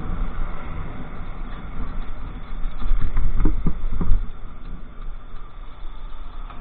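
Wind noise and road rumble on a motorcycle rider's camera microphone while riding in traffic. The rumble grows louder for about a second, about three seconds in.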